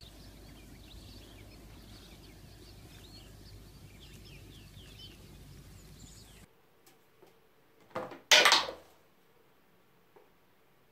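Faint outdoor background with distant small birds chirping. It cuts to a quiet room, where about eight seconds in a sharp knock and a louder clatter of hard objects come close together.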